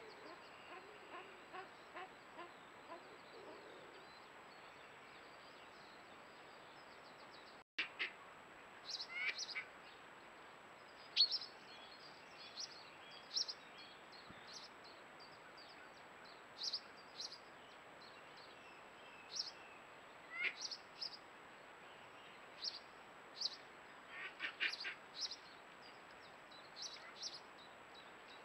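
Wild birds calling at a garden pond: short, high chirps repeating irregularly every second or so, a few of them carrying lower notes too. In the first few seconds, lower duck-like calls are heard.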